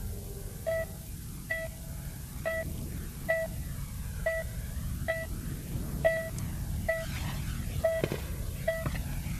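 Patient heart monitor beeping steadily, about ten short beeps a little more than one a second, over a low steady rumble.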